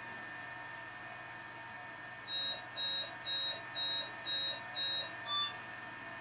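ESU LokSound V4.0 sound decoder in a Liliput model of a BLS RABe 515 electric multiple unit, playing the standing train's steady electrical hum, then seven short beeps about two a second, typical of a door-closing warning.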